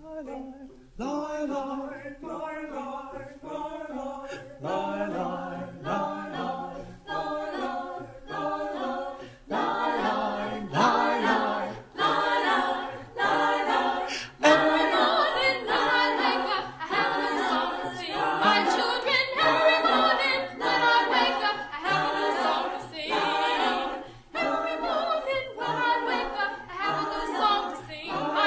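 A group of workshop singers singing unaccompanied in several parts on wordless syllables. It starts about a second in, and more voices join about ten seconds in, growing louder.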